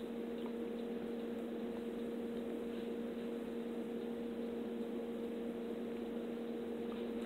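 A steady hum on two pitches over a faint even hiss: room tone with no speech.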